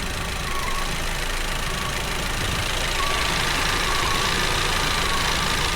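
Audi TT 2.0 TFSI four-cylinder turbo petrol engine idling steadily while it misfires at idle, the fault traced to cylinder 1's ignition.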